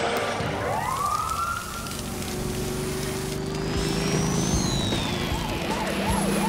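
Cartoon sound effects: a rescue jet plane whooshes away with a rising glide in pitch, then vehicle engines hum steadily. Near the end a siren starts wailing up and down in quick repeated cycles.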